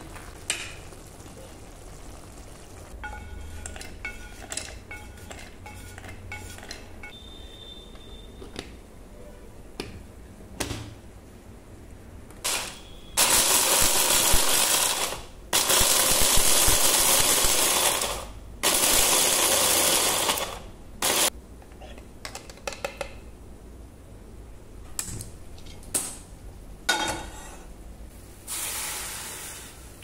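Electric hand blender with a chopper attachment running in three pulses of about two seconds each, then a brief one, chopping food in its plastic bowl. Before it, light clinks and scrapes of kitchen utensils.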